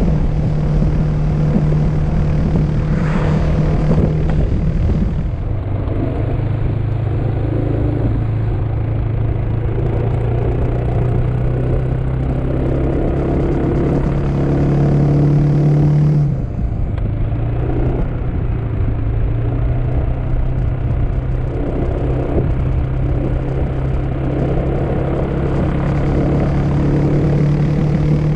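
Scooter engine running at cruising speed with wind rushing over the microphone. The engine note dips about halfway through, as the throttle is eased, then builds again near the end.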